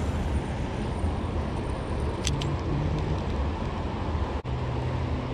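Steady rush of fast water flowing through a rocky spillway, an even noise heaviest in the low end, briefly cut out about four and a half seconds in.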